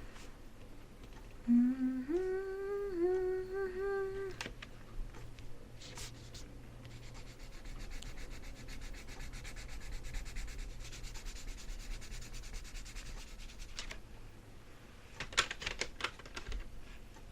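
Oil-based colored pencil scribbling rapidly on paper in quick, even back-and-forth strokes, laying a second layer of color into a swatch. A person hums briefly near the start, and a few sharper strokes come near the end.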